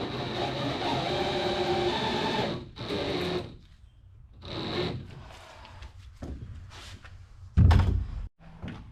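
A small handheld power tool running steadily for about two and a half seconds, then stopping, followed by a few short bursts and clicks and one loud thump near the end.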